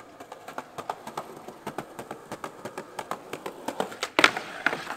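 Skateboard on paving: a run of light clicks and taps, then a loud, sharp crack about four seconds in as the board's tail is popped against the ground.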